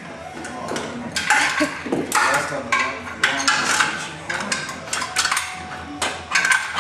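Hand tools clinking and clanking against metal parts in a car's engine bay, in irregular knocks and rattles.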